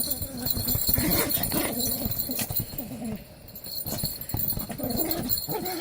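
Pomeranian growling in play over a stuffed toy, in rough stretches that waver up and down in pitch, with a few sharp clicks among them.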